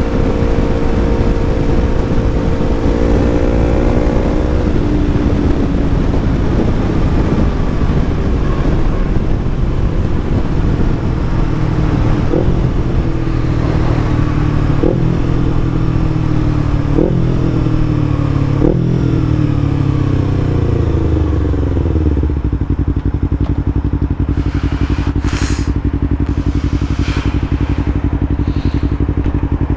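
Yamaha MT-03's parallel-twin engine through an Arrow Thunder full-system exhaust. The engine note falls as the bike slows, with four brief rev spikes about two seconds apart, then settles to a steady idle about three-quarters of the way in.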